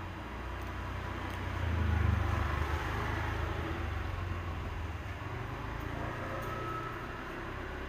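Steady low background rumble with hiss, swelling about two seconds in and then easing back.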